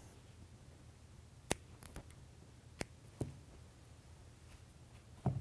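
A few faint, sharp snips and clicks at irregular intervals: scissors cutting the end off a parachute cord slinky weight.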